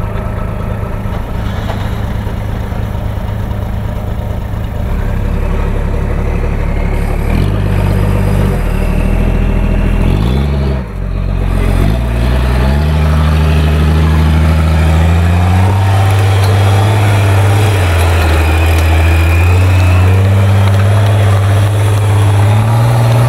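Toyota 60 Series Land Cruiser winch truck's engine running under load as it climbs a steep dirt slope. It runs steadily at first; the revs rise and fall a few times near the middle and dip briefly, then are held high and slowly climb.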